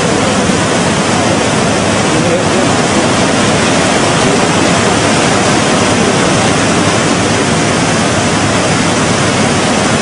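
Steady, loud rush of floodwater from a swollen river.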